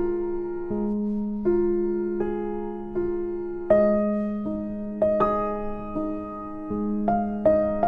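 Background music: a slow piano melody, single notes struck a little under a second apart over a held low note.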